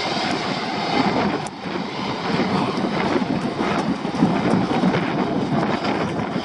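Jet airliner climbing away after take-off, its engine roar fading after the first second or two, with the runner's regular footfalls and wind on the microphone.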